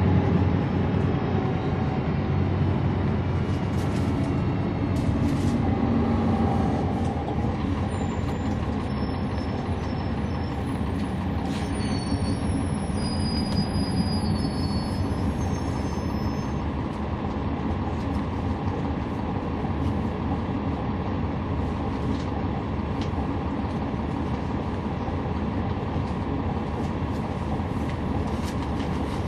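Inside a 2011 NABI 40-foot transit bus under way: the Cummins ISL9 diesel and ZF Ecolife six-speed automatic pulling, easing off about seven seconds in, with steady road rumble and a few clicks and rattles.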